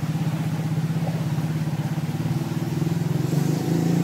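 A small engine running steadily with a fast, even pulse, rising slightly in pitch near the end.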